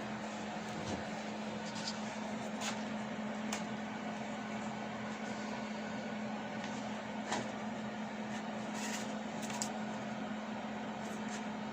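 A steady machine hum with scattered faint clicks and a couple of short hisses near the end.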